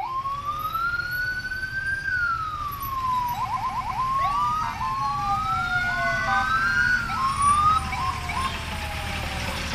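Toy police car's electronic siren: a slow wail that rises and falls, then quick yelping chirps and several overlapping wails.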